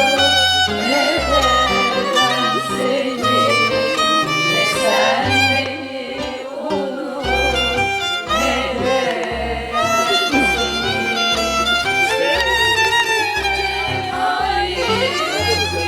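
Instrumental music with a violin carrying the melody over a repeating bass line.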